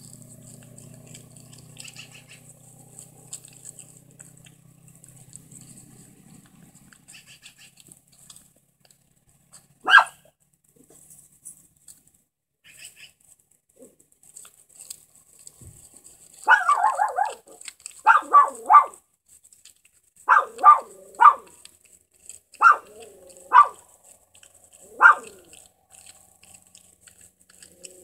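A dog barking, unseen: one bark about a third of the way in, then repeated short barks in groups of two or three through the second half.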